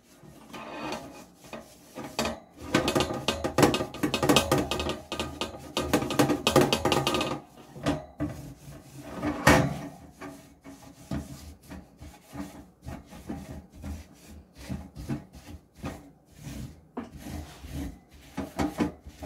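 Steel wool scouring a greasy metal oven rack in rapid back-and-forth strokes, hardest for several seconds near the start, then lighter and more broken up, with one louder knock of the rack about halfway through.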